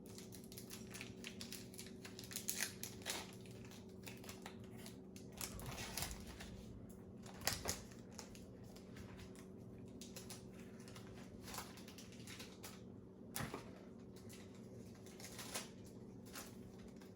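Foil wrapper of a Pokémon trading-card booster pack crinkling as it is opened and the cards handled, in scattered light clicks and rustles.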